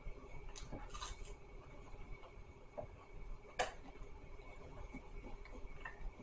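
Quiet eating noises: scattered small clicks and crackles of chewing and handling fast food, with one sharper click about three and a half seconds in.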